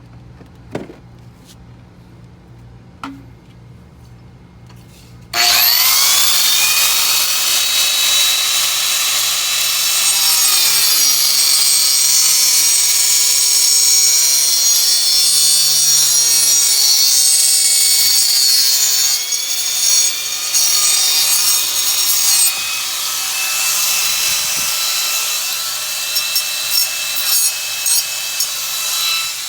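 Electric power saw cutting glued PVC plumbing pipe. The motor starts with a rising whine about five seconds in and runs loud for over twenty seconds, its pitch sagging while the blade bites through the pipe. It ends in a few short spurts near the end.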